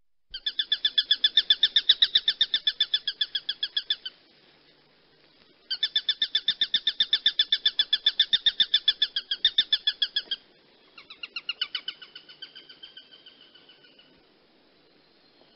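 A hawk calling in long rapid series of sharp, pitched notes, about ten a second: two bouts of about four seconds each, then a shorter, weaker bout that slows and fades away.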